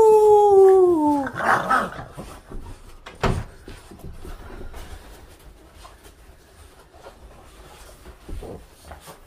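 A Boston Terrier gives a long whining cry that slides down in pitch over about the first second, followed by a short, rough second call. About three seconds in there is a single thump, and after it the dogs can be heard faintly scuffling.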